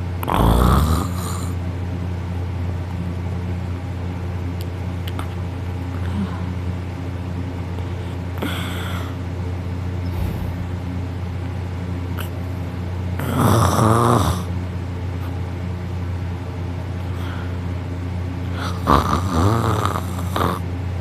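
A sleeping person snoring loudly: four snores several seconds apart, three of them loud and one fainter, over a steady background hum.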